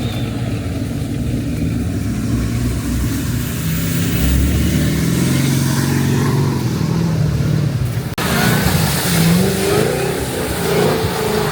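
Car engine revving, its pitch rising and falling, with an abrupt change in the sound about eight seconds in.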